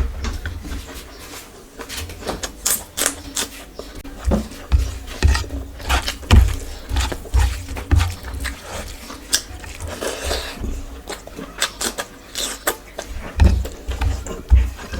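Close-miked chewing and mouth sounds from eating a curry-and-rice meal: wet smacking clicks and low thumps from the jaw, a few a second at an uneven pace.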